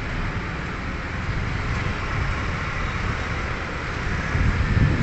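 Steady outdoor city traffic noise. A louder low rumble builds near the end.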